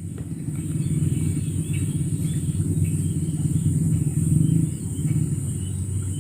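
A steady low engine rumble that swells about a second in and eases a little near the end, over a constant thin high hiss.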